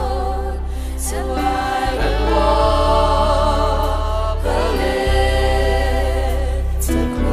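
Gospel worship music: voices hold long notes with vibrato over a steady bass, the chord changing about every two seconds.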